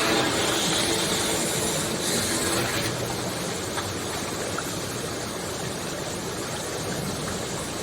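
A steady rushing noise, fairly loud and even, with no clear pitch.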